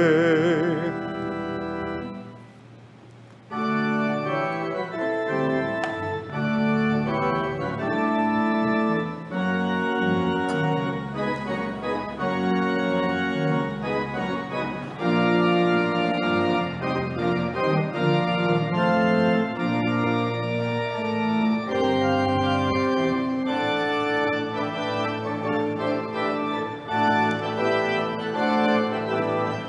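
A held sung note ends about a second in. After a short pause, an organ starts about three and a half seconds in and plays sustained chords with moving notes, the postlude that closes the service.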